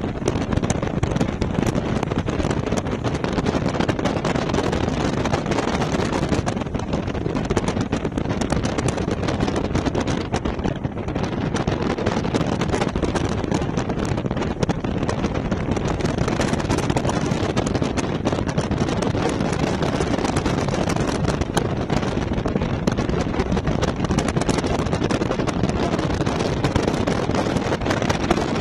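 Steady wind noise of the airflow rushing over the camera microphone during paraglider flight.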